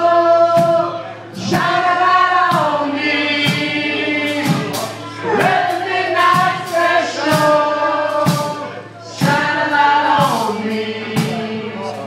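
Several voices singing together live, with hand claps on the beat about every three-quarters of a second.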